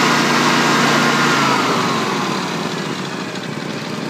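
Kawasaki FH500V V-twin propane engine revved up and running smoothly, then easing off with its pitch falling in the second half. It now revs like it's supposed to, its PCV tube glued back in place after it had come loose into the carburettor throat and caused the missing and lack of power.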